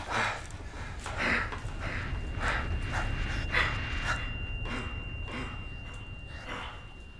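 A person breathing heavily and rhythmically, about one breath a second, over a low rumble. A thin, steady high tone comes in about two seconds in, and the breaths fade toward the end.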